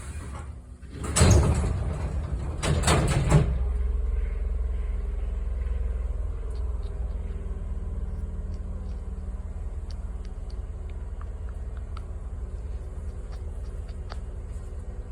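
Pneumatic sliding doors of a Hankyu 6000 series train car working without a door chime: a loud rush of air about a second in, then the door panels sliding and knocking together near 3 s. A steady low rumble of the train follows.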